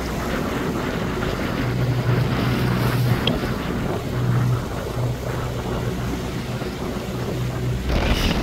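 Motorboat's outboard engine running at low speed, its low hum swelling and easing every second or two, with wind on the microphone and water noise around the hull.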